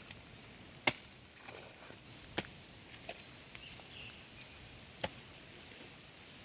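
A few sharp, irregularly spaced knocks or snaps, the loudest just under a second in, over a faint steady outdoor background.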